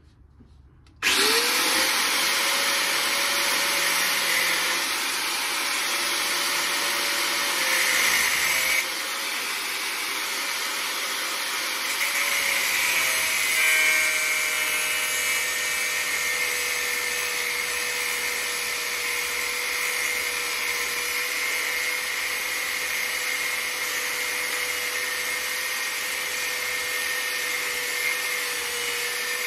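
Angle grinder spinning up about a second in, then running continuously with a steady whine and hiss as it cuts through the van's coil spring.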